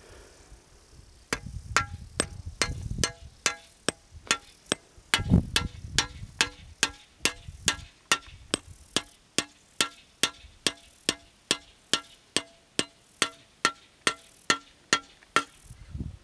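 Scythe blade being peened: a hammer strikes the blade's edge on a small anvil in a steady rhythm of a little over two strikes a second, each a sharp metallic ring. Low rumbling runs under the first few strikes and again around five seconds in.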